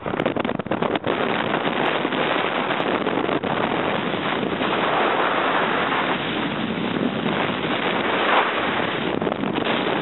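Wind rushing over the microphone of a fast-moving handheld camera, a steady loud rumbling hiss with small gusts.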